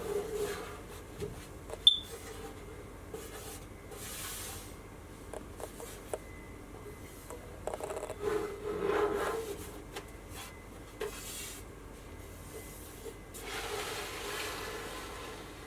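Irregular rubbing and scraping handling noises, with a single sharp click about two seconds in and longer scraping stretches later on.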